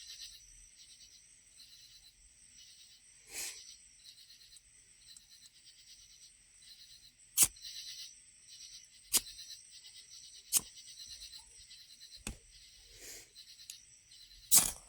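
Five sharp scrapes of a striker on a fire-steel rod, one every second and a half or so in the second half, throwing sparks onto a tinder quick. A steady pulsing chorus of insects runs underneath.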